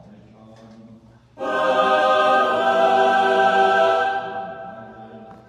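Choir singing one long held chord that comes in suddenly about a second and a half in, holds, and fades away near the end.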